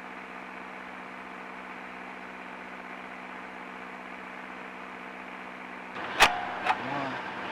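Boat engine idling steadily, an even low hum with several fixed tones. About six seconds in it stops abruptly, and a sharp click follows.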